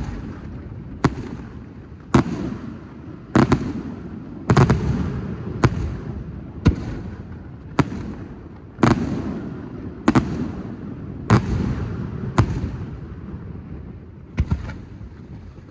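Fireworks display: shells bursting with sharp bangs about once a second, each followed by a low rolling rumble. Near the end there is a pause of about two seconds, then two bangs in quick succession.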